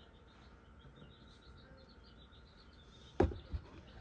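Two short knocks about three seconds in, the first sharper, as an egg is handled and the next one set on the egg candler. Faint high chirping keeps up in the background.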